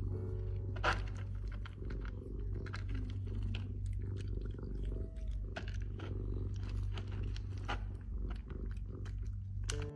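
Cat eating dry kibble with its head inside a plastic cone collar: many irregular sharp crunches over a steady low purring rumble.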